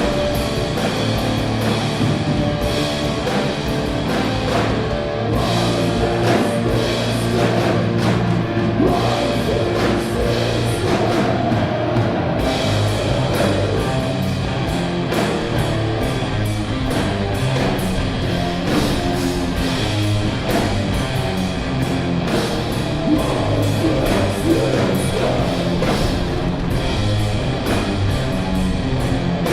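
Stoner metal band playing guitars, bass and drums in a steady, continuous rock groove.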